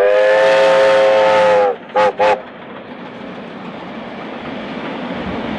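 Steam whistle of Victorian Railways Y class 0-6-0 locomotive Y112: one long blast of about a second and a half, then two short toots. Then the train's carriages rolling past with a steady rumble that slowly grows louder.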